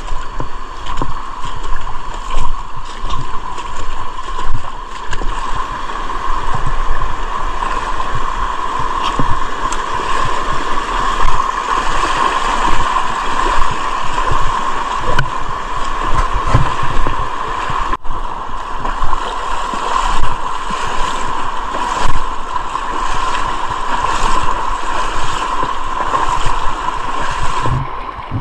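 Loud, steady rush of river water with irregular low thumps; it drops away suddenly near the end.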